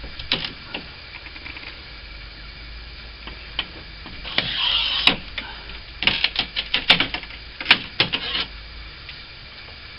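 Hand tool working old putty out of a window frame: a scrape about four and a half seconds in, then a quick run of sharp taps and clicks between about six and eight and a half seconds.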